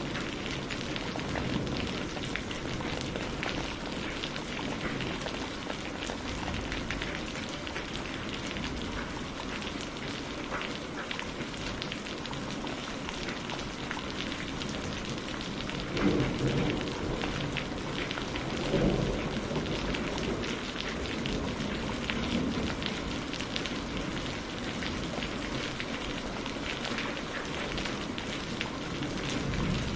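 Steady heavy rain pattering on a surface, with dense drop ticks throughout. Twice about halfway through, a short low rumble of thunder swells up over the rain.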